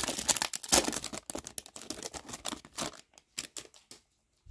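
A card pack wrapper crinkling and crackling as it is torn open and the trading cards are handled. The crackle is dense for about the first three seconds, then thins to a few separate clicks.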